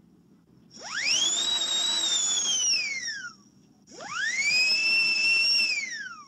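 Dentist's drill whining twice: each time it spins up to a high pitch, holds for about two seconds, then winds down. The second run settles at a slightly lower pitch than the first.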